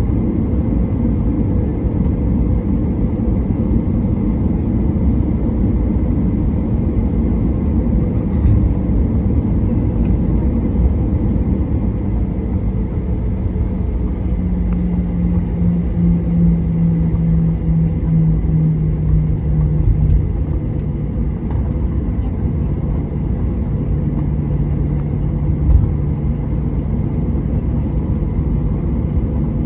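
Boeing 737-800 taxiing, heard from inside the cabin: a steady low rumble of the CFM56-7B engines at taxi power and the rolling gear. A steady low hum joins about twelve seconds in and drops a little in pitch around twenty seconds.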